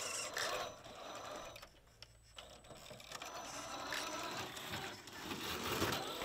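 Electric motor and gear drivetrain of an Axial SCX10 III Jeep Gladiator RC rock crawler whirring as it crawls down rocks, with a faint high whine that starts and stops in short spells as the throttle is worked.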